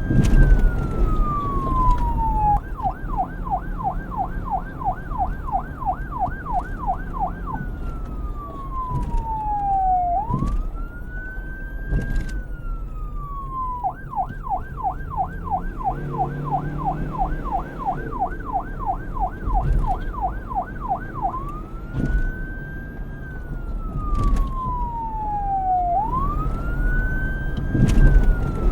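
Electronic police siren switching between its two modes: a slow wail that rises quickly and falls away over a couple of seconds, then a fast yelp warbling about three times a second for around five seconds, cycling round twice. A low rumble runs underneath.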